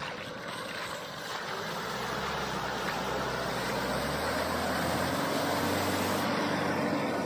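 Mahindra Scorpio-N's 2.2-litre diesel engine running under load beneath a steady rushing noise. The whole sound grows gradually louder, and the engine note rises a little about four seconds in.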